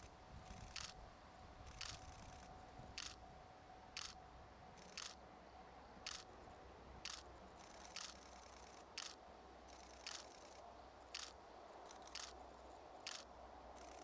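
Faint camera shutter clicks, evenly spaced at about one a second, over a quiet background with a faint steady hum.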